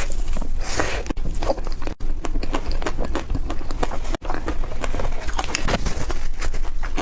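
Close-up chewing and biting of crispy frozen ice cream: dense, irregular crunching and crackling. The sound cuts out briefly twice, about two and four seconds in.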